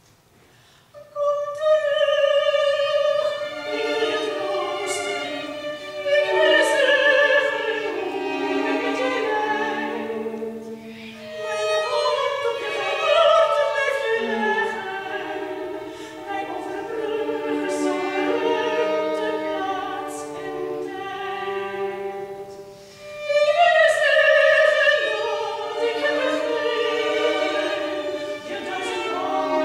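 A woman singing in classical, operatic style, accompanied by a small chamber ensemble of violins, clarinet and cello. The music begins about a second in.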